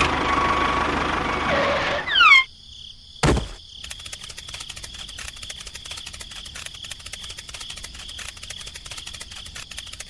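A loud rushing noise ending in a few quick falling whistles, cut off about two and a half seconds in, then a single thud about a second later. After that, steady rapid cricket chirping.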